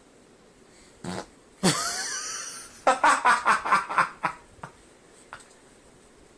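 Fart sounds: a short one about a second in, then a louder, longer raspy one, then a quick sputtering run of about eight short bursts, just as the kitten startles and leaps up.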